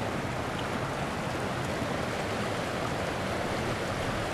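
Water rushing steadily over a small spillway waterfall, an even, unbroken rush.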